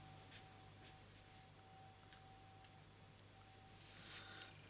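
Near silence: a few faint, light ticks of a marker nib on card as small details are coloured in, over a faint steady hum.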